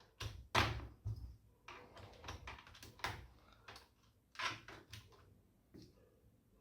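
Plastic keycaps of a TVS Gold Bharat keyboard clicking and clattering as they are handled and pressed onto the keyboard: about a dozen irregular sharp clicks and taps.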